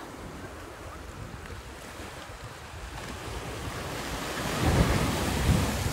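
Ocean surf washing and breaking against the shore, with wind buffeting the microphone; both grow louder in the last second or two.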